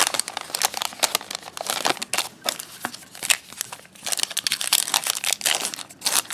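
A foil trading-card pack wrapper crinkling and tearing as it is ripped open by hand, a fast, uneven run of crackles. The wrapper is not tearing cleanly.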